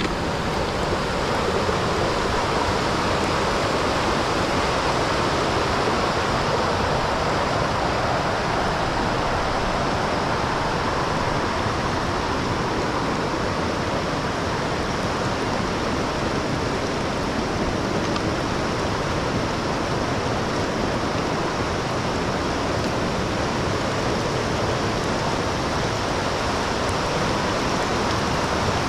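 Steady rushing of flowing water, an even noise without breaks.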